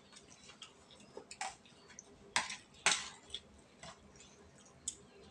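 Eating sounds at a table: a spoon and fork clicking and scraping against plates in scattered sharp clicks, the loudest two about two and a half and three seconds in, with chewing between.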